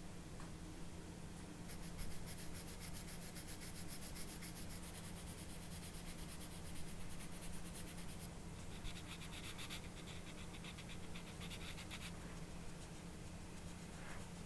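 Sanding stick rubbed in rapid back-and-forth strokes over the edge of a white plastic model-kit part, smoothing it. Two bouts of sanding, the second, about nine seconds in, higher and more hissing than the first.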